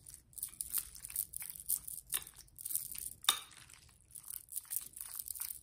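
A spoon stirring and folding potato salad in a glass mixing bowl: irregular soft squishing scrapes, with light clicks of the spoon against the glass, a couple of them sharper partway through.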